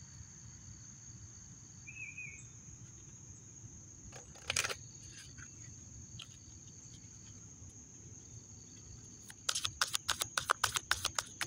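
A steady, high-pitched drone of insects. From about nine and a half seconds in, a deck of cards is shuffled by hand: a fast run of papery flicks and slaps, louder than the drone.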